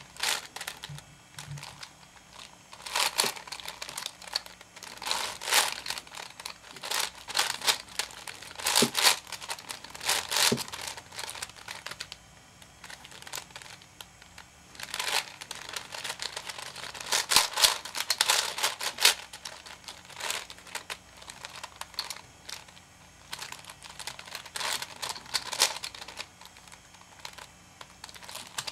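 V-Cube 7 puzzle cube being turned by hand: the plastic layers click and clack in irregular bursts of quick moves, with short pauses between them.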